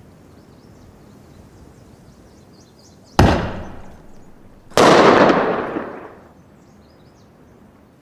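Double-bang firecracker (erti jiao) going off: a loud bang as it launches, then a second bang about a second and a half later as it bursts in the air, each echoing away.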